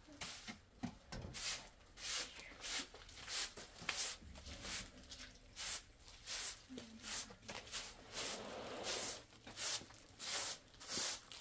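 Short straw hand broom sweeping a concrete floor: a run of brisk swishing strokes, about two a second.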